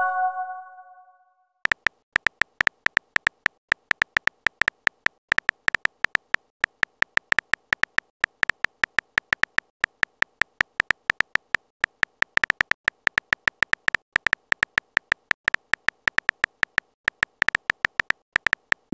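Rapid on-screen keyboard tap clicks of a texting app as a message is typed, several taps a second. A short electronic message-sent chime fades out right at the start, before the typing begins.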